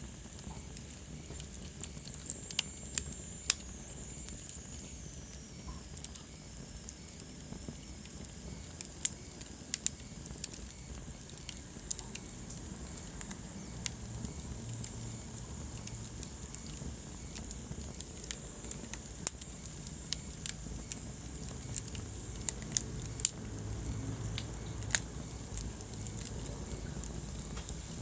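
Wood fire burning in a fireplace: a steady low rumble of flames with irregular crackles and occasional louder sharp pops. A faint high whistle slides downward in pitch a few seconds in.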